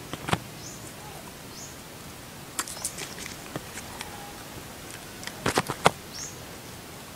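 Sharp clicks and crackles in three short clusters: about a third of a second in, around three seconds, and near six seconds. Between them are faint brief high chirps from a small bird.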